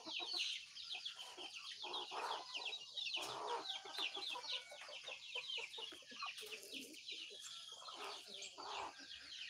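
Birds chirping: a dense, continuous run of short, high, falling chirps, with a few lower calls mixed in.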